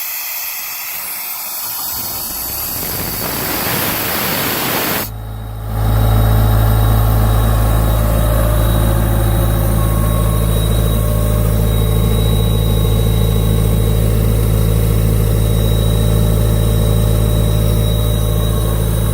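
Ingersoll Rand P185WJD portable air compressor's John Deere diesel engine running steadily at idle, a loud even hum. For about the first five seconds there is only a rising hiss, and the engine hum takes over a little after five seconds in.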